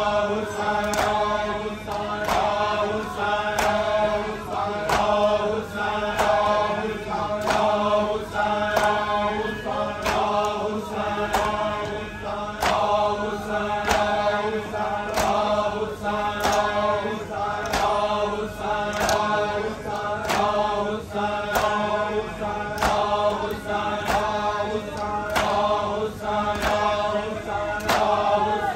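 Men's voices chanting a noha, a Shia lament, with a steady beat of matam (hands striking chests) about once a second.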